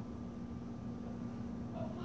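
Quiet room tone with a steady low hum and no distinct event.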